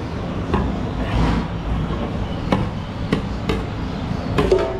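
A metal ladle clinking and knocking against a steel serving platter and bowl, a handful of sharp knocks at irregular moments with a quick cluster near the end, over a steady low background rumble.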